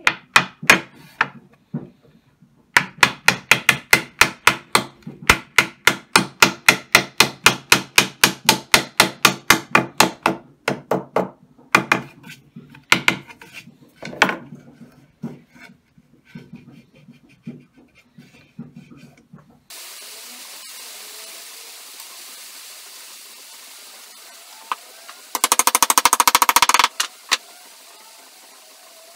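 Plastic-faced mallet tapping a wooden dovetail joint together, a quick even run of about four taps a second, then slower, scattered taps. Later a single loud scraping burst lasting about a second and a half.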